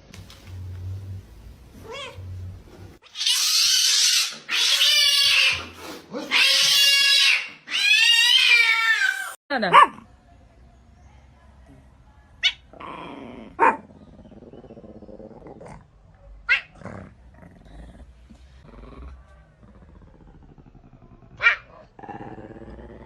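Cat yowling: four loud, drawn-out wails in a row, rising and falling in pitch, starting about three seconds in. After them come quieter sounds and a few sharp clicks.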